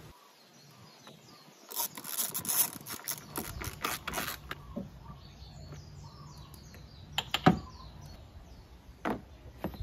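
Quarter-inch-drive ratchet with a 10 mm socket clicking in quick runs for about three seconds as it turns a small bolt in. A single sharp knock follows a few seconds later, and another near the end.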